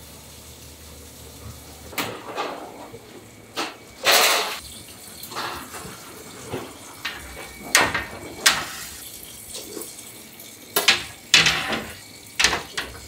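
Metal baking sheets clattering as they are handled and slid into a commercial deck oven: a run of irregular sharp knocks and clanks, with a longer scraping slide about four seconds in.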